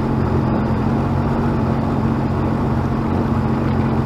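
Sea-Doo personal watercraft engine running at a steady speed, with a constant hiss of rushing water under it.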